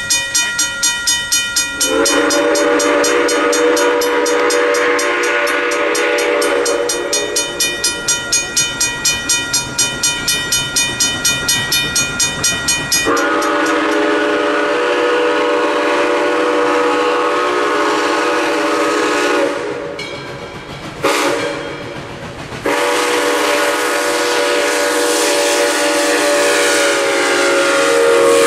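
Modern Industries mechanical crossing bell ringing rapidly and steadily. Over it, the chime whistle of Southern Railway 630, a 2-8-0 steam locomotive, sounds the grade-crossing signal: two long blasts, a short one, then a final long blast as the engine reaches the crossing.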